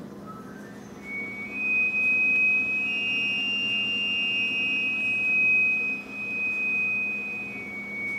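Brand-new upright freezer whistling after its door is shut. A high, steady whistle steps up in pitch over about the first second, then holds, with a fainter higher tone above it for a few seconds in the middle, a sound likened to a bull elk's bugle. A low steady hum runs underneath; the owners think the altitude might be the cause.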